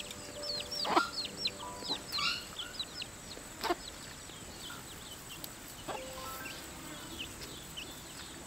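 Small birds chirping over and over in quick, short downward calls, over a steady high insect-like whine. A few held background music notes fade out in the first second or so, and three sharp clicks stand out, the loudest about a second in.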